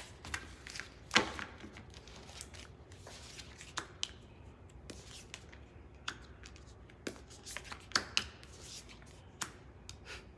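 Tarot cards being shuffled and handled: a string of soft, irregular flicks and slaps of the cards, the sharpest about a second in and several more near the end.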